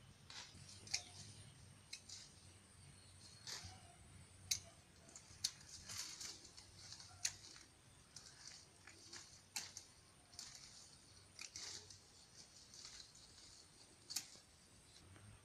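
Hand pruning shears snipping plant stems: about a dozen sharp snips at irregular intervals, with a faint rustle of leaves between them.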